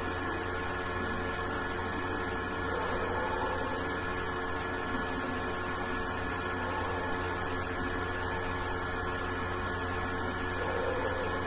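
Steady electrical hum with hiss, holding several fixed tones, and a few faint soft swells.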